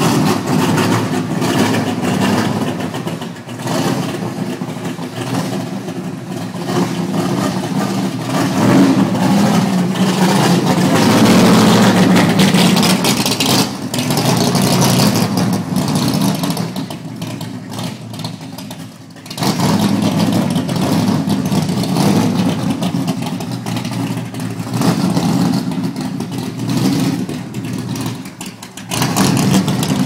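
1970 Plymouth Superbird race car's 426-cubic-inch V8 running and being revved, loudest through the middle, with two brief drops in level in the second half.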